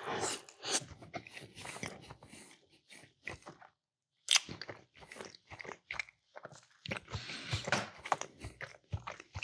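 A person chewing food, with irregular crunchy mouth sounds in short bursts. There is a brief pause just before four seconds in, then a sharp crunch.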